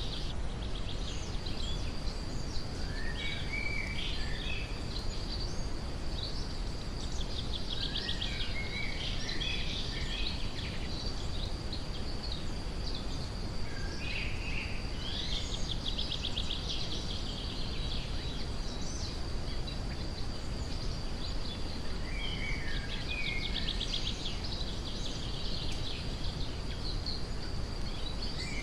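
Forest birds singing, several trilling songs coming and going, over a steady brown-noise rush, with a thin steady high tone running underneath.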